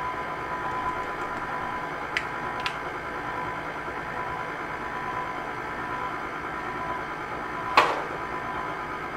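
KitchenAid Classic Plus stand mixer running steadily, its motor humming as the beater creams pound cake batter in the steel bowl. Two light clicks come about two seconds in, and a louder sharp knock comes near the end.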